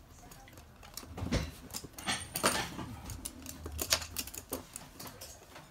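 Toy poodle's claws clicking irregularly on a hard floor as it moves about, with a brief rustle about halfway through.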